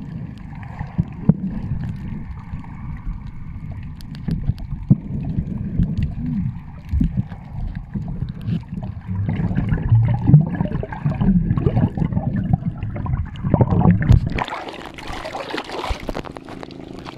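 Water sounds picked up by a camera held underwater: a dull, low rumble with surging swells and scattered clicks from the swimmer's movement. About 14 seconds in, the camera breaks the surface and the sound turns to a brighter, airy hiss with splashing.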